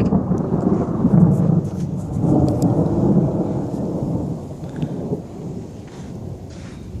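Thunder rumbling after a lightning strike, swelling twice in the first few seconds and then slowly dying away, with rain falling.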